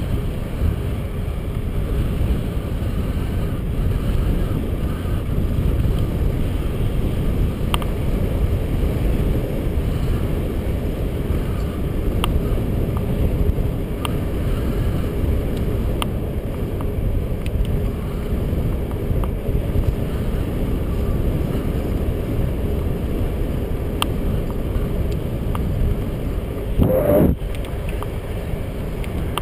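Steady low rumble of wind buffeting a GoPro camera's microphone on a moving road bicycle, mixed with tyre noise on asphalt. A few faint ticks come through, and there is one short, louder sound near the end.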